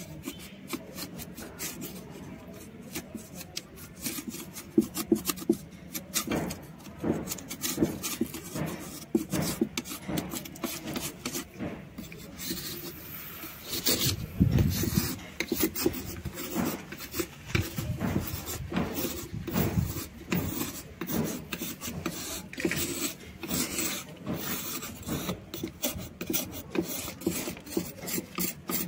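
A knife blade scraping across a block of soft white shale stone in quick repeated strokes, shaving off flakes and powder. The scraping is loudest about halfway through.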